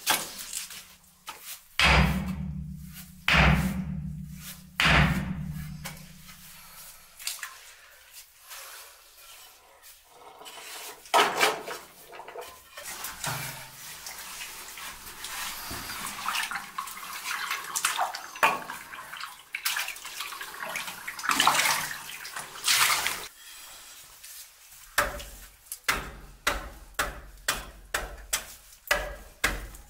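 Hand tools working soft, wet stone. A few quick strikes come first, then three heavy thuds, then a long stretch of wet scraping and splashing. Near the end comes a steady run of short chopping blows of a hand axe into the stone, about three a second.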